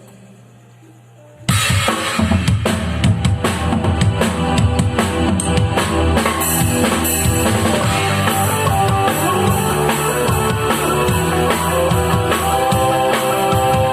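A gospel band starts the instrumental intro of a song with drum kit and other instruments, coming in suddenly about a second and a half in after a low hum.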